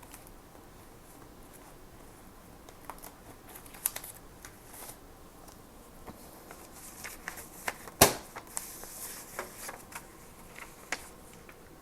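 Stationery and paper being handled at close range: scattered small clicks and taps with some paper rustling, and one sharp click about eight seconds in.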